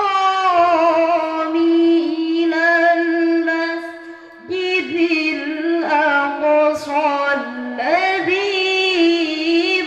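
A young woman's solo melodic Qur'anic recitation (tilawah) in a microphone: long held notes with ornamented turns, a brief breath about four seconds in, and the line picked up again at a new pitch.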